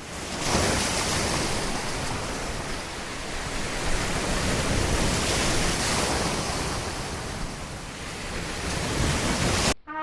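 Wind buffeting the microphone: a steady rushing noise that swells and eases, cut off suddenly near the end.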